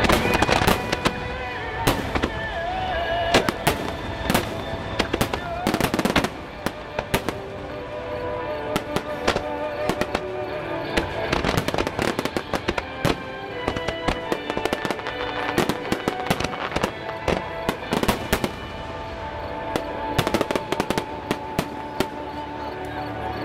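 Aerial fireworks shells bursting in rapid, irregular succession, many sharp bangs, some clustered close together. Music plays steadily underneath.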